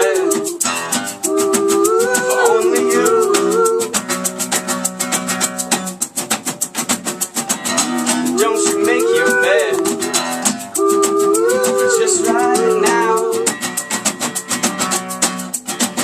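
Live band music in an instrumental passage: plucked guitar, with a shaker keeping a fast, even rhythm. Over it, a wavering melody comes in phrases of about two seconds, with pauses between.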